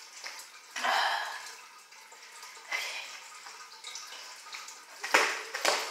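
A few faint rustles, then near the end a jump rope starts slapping the wooden floor in a steady rhythm, about two sharp slaps a second.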